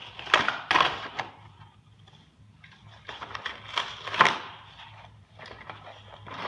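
Cardboard packaging being worked open by hand: scattered rustles and sharp clicks and clacks, loudest about a third of a second in, around a second in, and just after four seconds.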